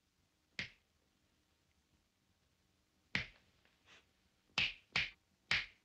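Fingers snapping: a single sharp snap, then after a pause of about two and a half seconds a quicker run of four snaps with a fainter one among them.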